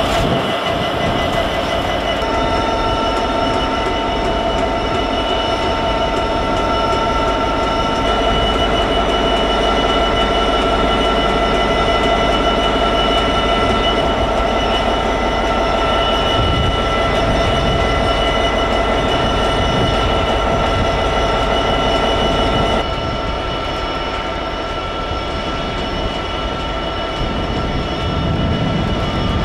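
Class 66 diesel-electric locomotive's EMD two-stroke diesel engine idling, a steady hum with a high held whine. Near the end the sound cuts abruptly to a slightly quieter approaching diesel freight train.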